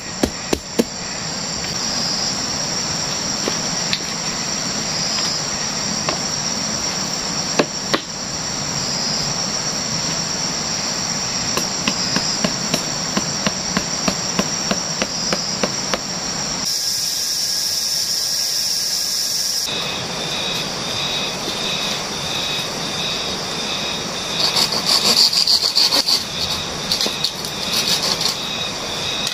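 A chorus of tropical forest insects chirring steadily, with a regular high chirp about once a second. Over it, a hammer taps on sago palm stems: scattered blows at first, then a quick run of strikes, stopping about halfway through.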